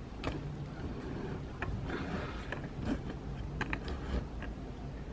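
Handling noise from a camera being grabbed and carried: a scattered string of small clicks and knocks with rubbing against its body and a low rumble.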